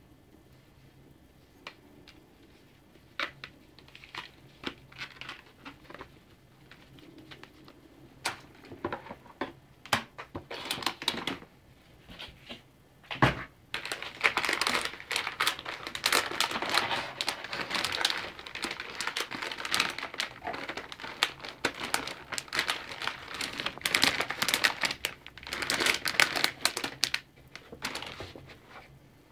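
Plastic packaging from a motherboard box being handled: scattered light clicks and taps, one sharp knock about halfway through, then continuous crinkling and crackling of plastic being lifted out.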